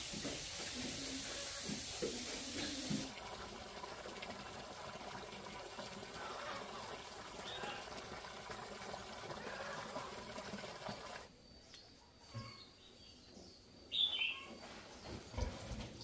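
Slurry from a pig-manure biogas digester pouring steadily out of pipes into a collecting barrel and tank. The flow drops away about eleven seconds in, and a short bird chirp follows near the end.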